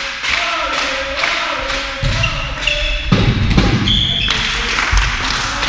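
Indoor volleyball play in a sports hall: thuds and smacks of the ball, short squeaks of shoes on the hall floor, and players calling out. The heaviest thuds come from about two to four seconds in.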